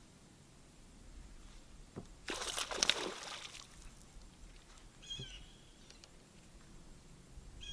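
A splash on the water surface lasting about a second, just after a single knock. A bird gives a short call twice, about halfway through and again at the end.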